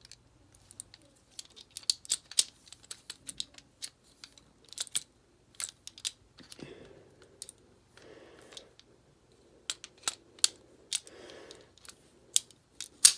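Steel parts of a Ruger Mark IV Target .22 pistol clicking and clacking at irregular intervals as the pistol is reassembled, with the loudest click near the end.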